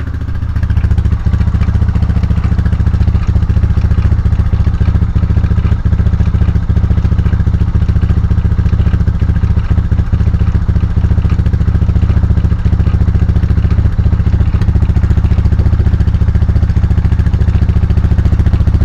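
Honda FourTrax 300 4x4 ATV's single-cylinder engine running in gear. It picks up about half a second in and then holds a steady, loud run with the drivetrain turning. The machine's rear end no longer drives after locking up, and the owner hears something wrong from it.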